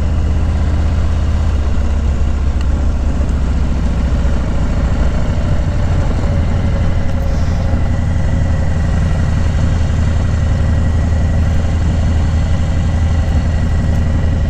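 Harley-Davidson Low Rider S's Milwaukee-Eight 114 V-twin running steadily under the rider on a dirt road.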